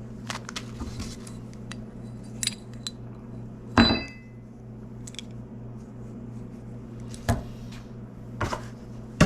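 Metal deadbolt lock hardware being handled: scattered small clicks and knocks, with one louder clink about four seconds in that rings briefly.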